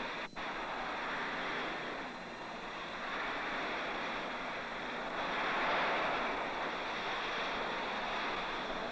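Steady rushing hiss, with a brief dropout just after the start and no distinct event standing out: the background noise of an old film soundtrack.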